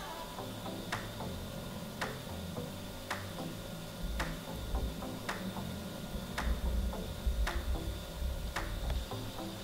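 A clock ticking steadily, about once a second, over a faint, uneven low rumble.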